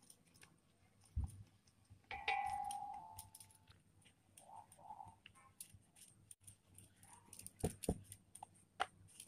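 A wooden rolling pin rolls atta dough flat on a wooden board, with soft scattered clicks and a couple of sharper knocks near the end. About two seconds in, a short metallic ring fades away over a second or so.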